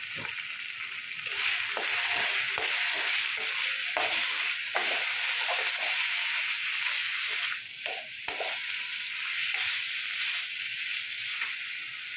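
Tomato-ginger masala with ground spices sizzling in hot mustard oil in a metal kadai while a spatula stirs and scrapes it, with frequent short scrapes over a steady sizzle. The sizzle grows louder about a second in, as the masala is roasted.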